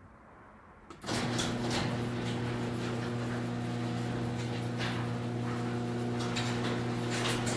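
Electric garage door opener starting about a second in and running steadily with a motor hum, moving the door, with scattered clicks and rattles from the chain and track.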